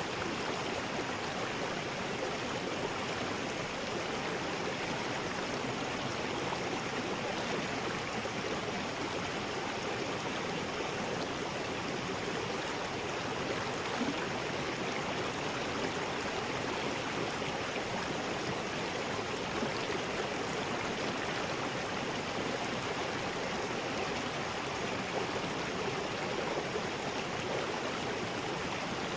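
River rapids: water rushing steadily over rocks with no pauses or changes.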